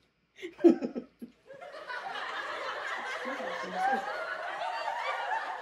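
Laughter: a few short chuckles at first, then from about a second and a half in a longer unbroken stretch of laughing.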